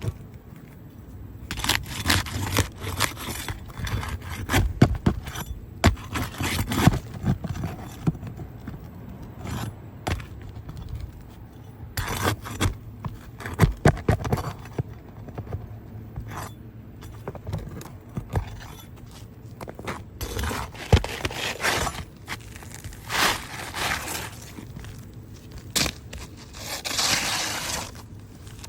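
Irregular scraping, clinking and knocking of hard objects being handled and worked on, with short noisy bursts scattered throughout.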